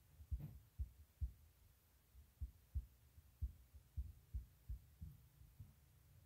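Faint, deep thumps, about two a second at uneven spacing.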